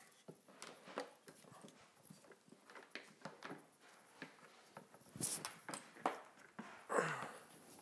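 Clicks, knocks and scrapes of the Tacx Blue Matic trainer's metal frame and leg tubes with their rubber feet being handled and fitted together on a table, with a louder scrape about five seconds in and a louder rubbing sound about seven seconds in.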